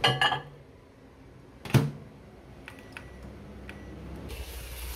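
Countertop microwave oven heating a bowl of oatmeal. Its door shuts with a single sharp thump about two seconds in, a few keypad beeps and button clicks follow, and near the end the oven starts running with a steady low hum.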